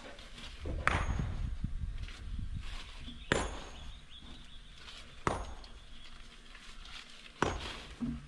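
Four sharp knocks about two seconds apart, each ringing out briefly.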